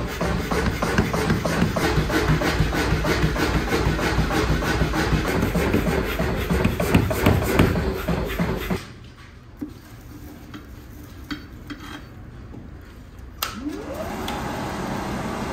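Mechanical power hammer pounding a red-hot Damascus billet of forge-welded fishing hooks, a rapid, steady run of heavy metal blows. After that the sound drops to a few light metal clinks, then a rising whine and a steady rush as the coal forge's electric blower starts up.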